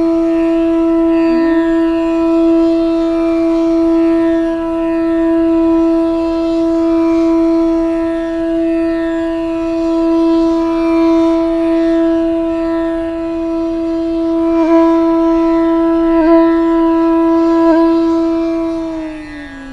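Intro music: a woodwind holds one long steady note, with three brief grace-note flicks near the end before it slides down to a lower note.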